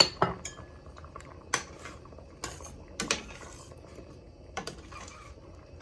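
Kitchen utensils clinking and knocking against a cooking pot and dishes: about seven sharp, irregular clicks and clinks.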